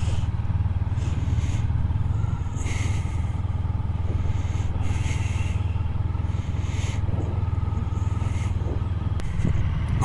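Motorcycle engine running steadily at low speed, heard close from a bike-mounted camera, with a hiss that comes and goes every second or two.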